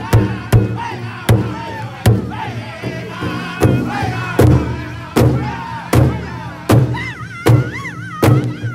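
Powwow drum group: several drummers strike a large hide drum in unison with sticks, a steady beat of about four strikes every three seconds, while men sing together in high voices over it. From about seven seconds in, one high wavering voice stands out above the others.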